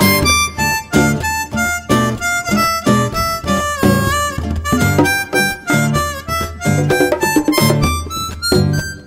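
Diatonic harmonica playing a melody solo, with some bent notes, over nylon-string guitar accompaniment.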